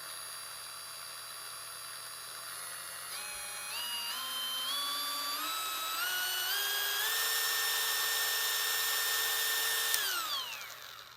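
Snap-on cordless angled die grinder running free with no load: a motor whine that climbs in pitch in several steps as the speed is raised, holds at top speed, then winds down and stops about ten seconds in.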